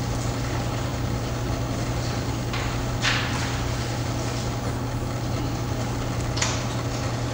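Steady low hum and room noise, with brief rustling sounds about three seconds in and again near the end.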